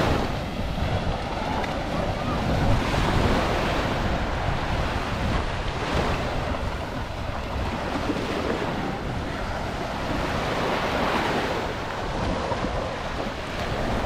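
Small ocean waves breaking and washing up the sand at the water's edge, swelling every few seconds, with wind buffeting the microphone as a low rumble.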